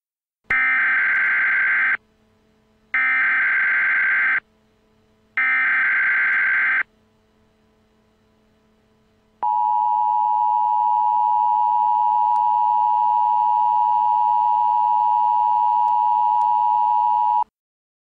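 Emergency Alert System signal: three harsh, screeching data bursts of about a second and a half each (the SAME header), then after a short pause the steady two-tone attention signal for about eight seconds, which cuts off abruptly.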